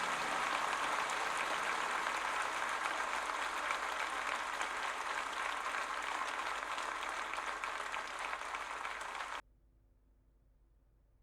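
Audience applause on a recording, played back through hi-fi loudspeakers, as an even clapping hiss that cuts off suddenly about nine seconds in, leaving near silence.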